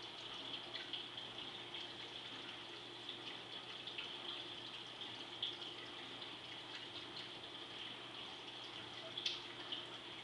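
Saltwater aquarium's water circulation: a steady trickling gush of water with many small crackling pops, over a faint steady hum. A sharper pop stands out about nine seconds in.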